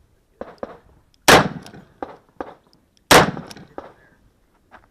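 Two loud handgun shots about two seconds apart, each followed by a short ringing tail, with several smaller sharp clacks in between.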